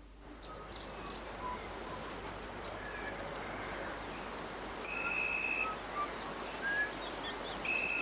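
Birds chirping over a steady hiss of outdoor background noise, with an electronic telephone ringing in two short, steady, high tones, about five seconds in and again near the end.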